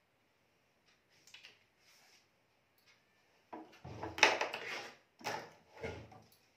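Small objects being handled and set down, faint clicks at first, then a few louder clatters and knocks between about four and six seconds in.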